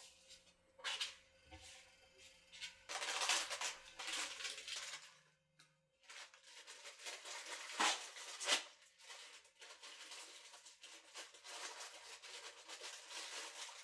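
Close-miked crackling and rustling as food is handled on a plate, in two stretches, with two sharp clicks about eight seconds in.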